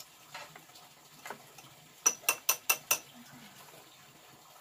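Five sharp clicks in quick succession, about five a second, starting about two seconds in, each with a brief high ring; two fainter knocks come before them.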